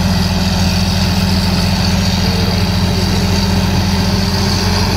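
Crawler bulldozer's diesel engine running steadily and evenly while the dozer pushes soil and brush with its blade.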